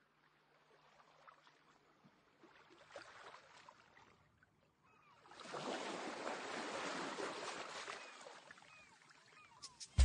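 Sea surf washing in, faint at first, swelling about five seconds in and then fading, with a few short high cries over it.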